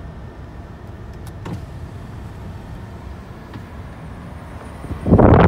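Car interior: a steady low rumble of the engine and tyres as the car rolls slowly and pulls over. About five seconds in, loud wind noise on the microphone comes in suddenly, as the car's window opens to the outside.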